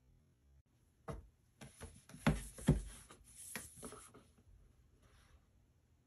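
Cardboard product boxes handled on a wooden tabletop: a run of light knocks and rubbing from about a second in until about four seconds in, with two louder knocks close together near the middle.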